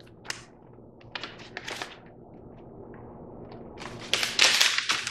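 Paper instruction sheets rustling and crackling as they are unfolded and handled, in scattered bursts that become louder and busier about four seconds in.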